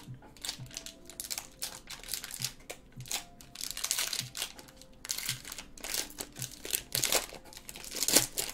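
Foil wrapper of a Bowman Draft Sapphire baseball card pack crinkling and tearing as it is pulled open by hand, in irregular crackles that are loudest near the end.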